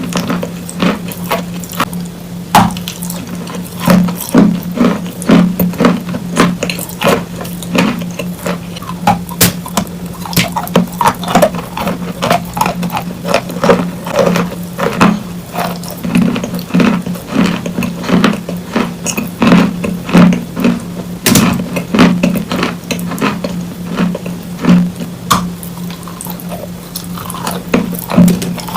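Close-up chewing of wet chalk: dense, irregular crunches and clicks, with a steady low hum underneath.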